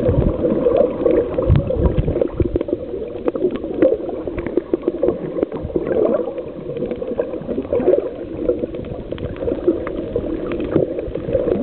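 Muffled water gurgling and sloshing around a snorkeler's camera in the water, with many small clicks.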